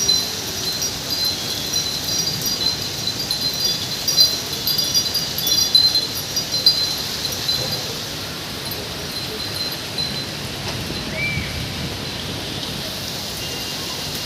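Steady heavy rain hissing, with wind chimes tinkling over it through roughly the first eight seconds and then fading, leaving the rain alone.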